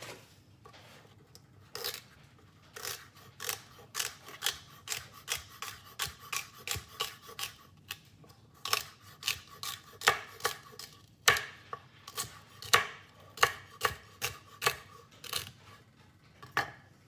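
Kitchen knife chopping onion on a cutting board: a steady run of sharp knife strikes, about two or three a second, with a short pause about halfway through.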